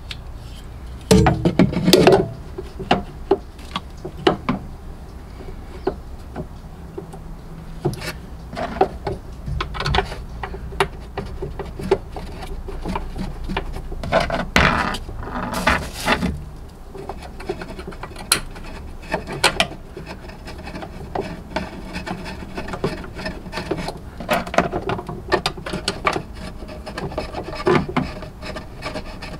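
Scattered clicks, taps and scrapes of a hand screwdriver and small parts as a new tailgate check strap is fitted and screwed into a Jeep Wrangler JKU tailgate.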